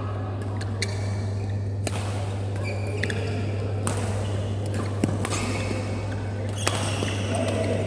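Badminton rally: rackets striking the shuttlecock with sharp clicks, one every second or so, and the loudest hit about five seconds in, mixed with short squeaks of shoes on the court mat. A steady low hum runs underneath.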